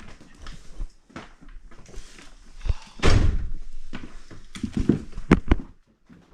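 A run of close knocks and thumps, with a louder rushing scrape about three seconds in, dying away near the end.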